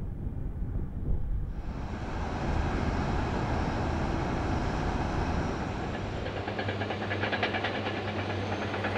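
Heavy industrial plant machinery running with a steady rumble. From about six seconds in, a low hum and a fast metallic rattling clatter join it.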